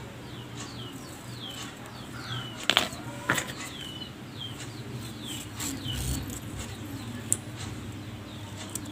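Small birds chirping again and again in the background, each chirp a short falling note, with two sharp clicks about three seconds in and a low steady hum underneath.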